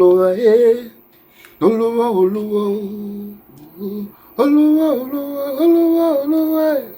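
A single voice singing three long, drawn-out phrases with held notes, separated by short pauses.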